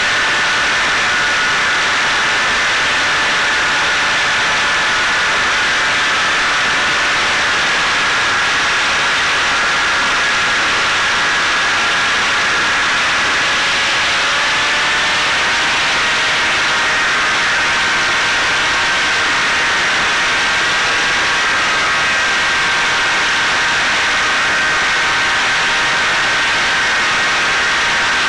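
Caipirinha 2 fixed-wing FPV drone heard from on board in flight: its electric motor and propeller give a steady high whine that wavers slightly in pitch, under a constant rush of wind noise.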